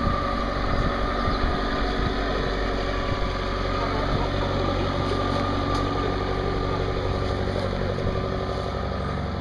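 Suzuki SJ 4x4's 1.5 turbodiesel engine running steadily at low revs as the vehicle crawls through deep muddy ruts.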